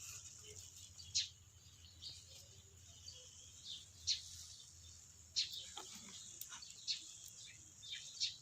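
Scattered short, sharp bird chirps over a steady, high-pitched drone of insects.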